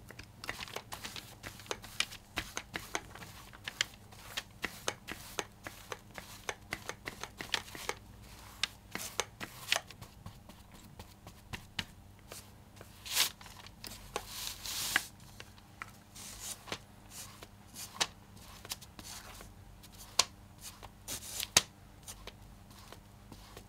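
Wide bristle brush stroking acrylic gel medium onto a sheet of linoleum: a quick run of short, scratchy brush strokes, with a few longer swishes about halfway through.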